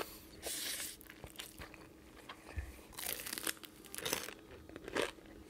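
A person chewing crunchy fried chicken close to the microphone, with several separate bursts of crunching between quieter chewing.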